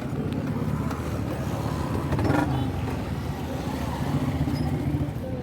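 Engine running steadily with a low rumble, with a brief louder knock about two seconds in.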